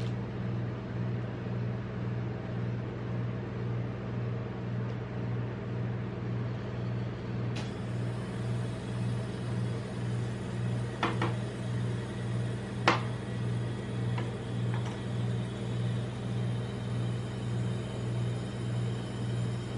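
Steady low hum of a rolled-ice-cream machine's refrigerated cold plate running, throbbing slightly about twice a second. Near the middle come a few light clicks and then one sharp knock as a chocolate bar is handled on the steel plate.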